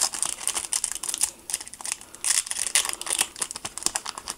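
Foil wrapper of a Panini Super Strikes trading card packet crinkling and rustling in the hands as it is handled and torn open: a dense, irregular crackle.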